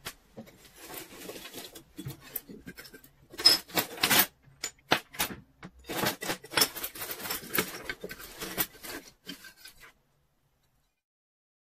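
Metal coins clinking and sliding against one another and on a tabletop as they are picked through by hand, with pieces of the broken coin bank's shell clattering among them: a busy run of small sharp clicks and clatters that stops abruptly near the end.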